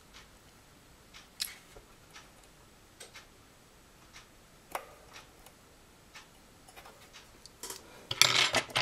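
Scattered light metal clicks and taps as the wire lead of a thermal fuse is bent with pliers and fitted against the dryer's metal heating-element bracket. A louder cluster of clicks and rustling comes near the end.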